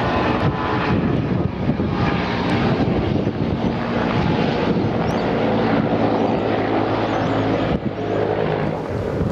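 Airbus AS365 Dauphin twin-turbine helicopter in flight, a steady engine and rotor drone under heavy wind noise on the microphone.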